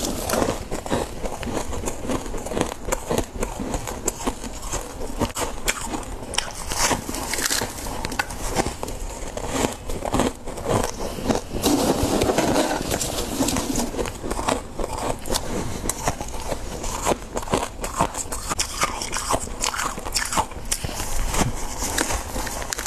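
Close-up crunching and crackling of powdery deep-freezer frost being bitten and chewed, a dense run of crisp crunches. There are spells of scraping as the frost is dug out of the freezer, notably around the middle.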